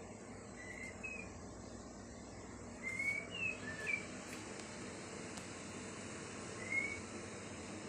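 A small bird giving short, rising chirps: two about a second in, a quick run of four or five around three to four seconds in, and one more near the end.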